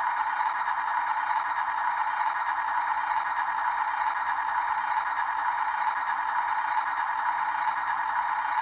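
Radio-controlled toy construction trucks' small electric motors and plastic gearboxes running with a steady rattling whir that does not change.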